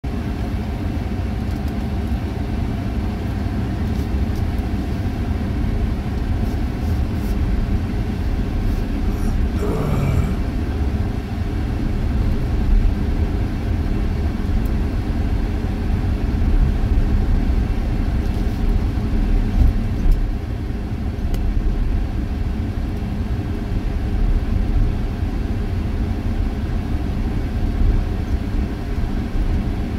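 Vehicle cabin noise while driving on a sand beach: a steady low rumble of engine and tyres, with a brief sweeping sound about ten seconds in.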